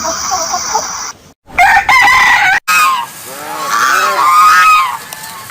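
Chickens: a rooster crowing and hens clucking in a rapid string of short repeated notes, in separate clips joined by abrupt cuts.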